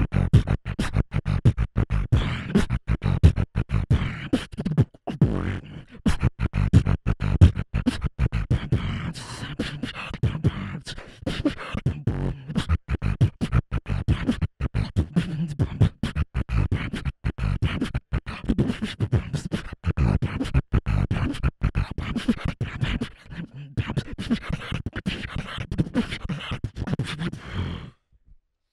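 Solo beatboxing into a cupped handheld microphone: fast, rhythmic mouth-made drum sounds, with clicks and deep bass kicks. It stops suddenly near the end.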